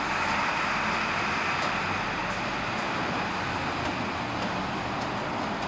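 R142 subway train running away along an elevated steel express track: a steady rumble and rail noise that slowly fades as the train recedes.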